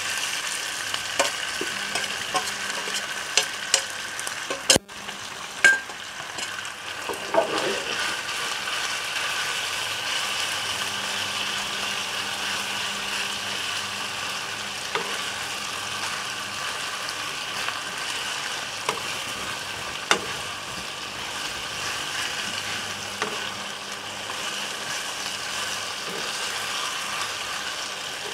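Marinated buffalo meat strips sizzling steadily in hot oil with ginger and garlic as they are stir-fried. Sharp knocks and scrapes of stirring against the pan come often in the first several seconds and now and then after.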